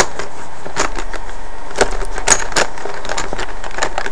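Hand rummaging through paper slips packed into a plastic cup, a scattered run of light rustles and clicks as a slip is drawn at random.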